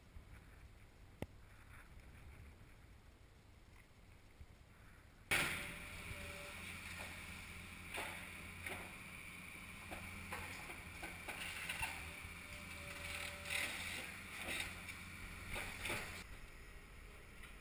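Faint wind noise, then about five seconds in a demolition excavator's engine starts up loud and steady, with many sharp knocks and cracks as concrete and debris are broken and fall.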